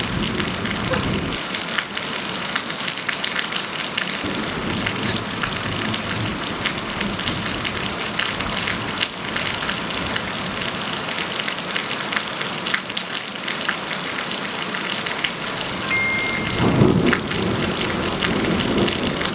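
Heavy thunderstorm rain falling steadily, with many close drops ticking sharply on hard surfaces. A low rumble comes near the start and again about seventeen seconds in.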